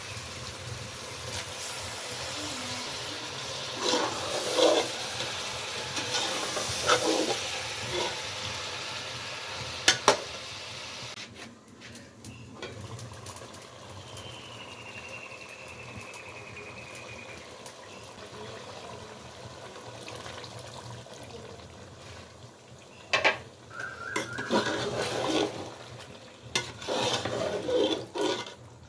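Cooking in a metal pot over a wood fire: a steady hiss of liquid and sizzling, with stretches of stirring and utensil clatter against the pot and two sharp knocks about ten seconds in.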